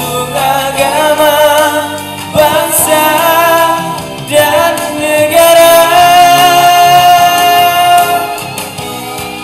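A young man singing a Malay patriotic song with vibrato over a backing track, in sung phrases that end in a long held note from about five to eight seconds in, then fade.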